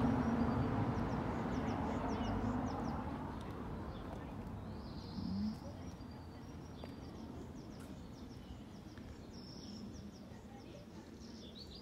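Small birds chirping now and then, while a vehicle's low engine hum fades away over the first few seconds.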